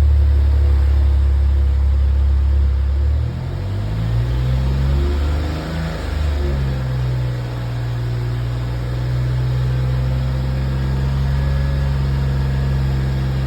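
Suzuki Jimny JB64's 660 cc turbocharged three-cylinder engine running under way, heard from inside the cabin with the windows open. Its drone shifts in pitch a few seconds in, then holds steady at a higher note. The owner reports an abnormal engine noise around 3000 rpm.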